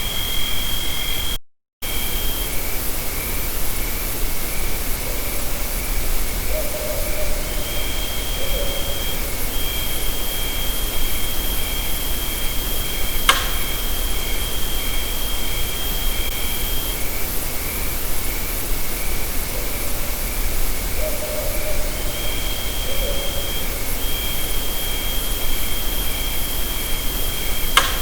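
Heavily amplified night forest recording, mostly a loud steady hiss. Over it run a fast high pulsing trill and a thin high steady tone that comes and goes, with a few faint short low sounds. Two sharp clicks come about halfway through and near the end, and the sound cuts out for a moment early on.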